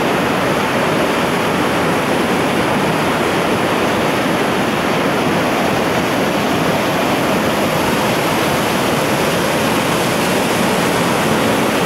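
Mountain river running fast over rocks in white-water rapids: loud, steady rushing water.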